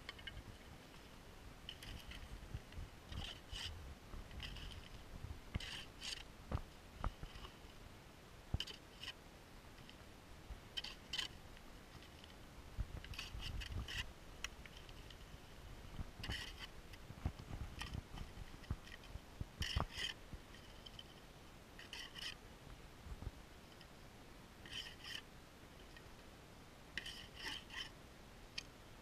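Plastic digging scoop scraping through gravelly soil in short rasps every second or two, with a few dull knocks as it is handled and set down, while dirt is scooped from a detecting hole and checked over a metal detector's coil.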